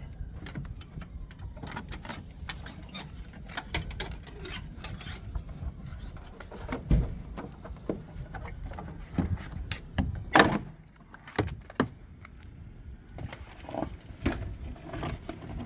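Irregular small clicks, rattles and knocks of hands working on plastic light-unit clips and wiring connectors, with louder knocks about seven seconds and about ten and a half seconds in.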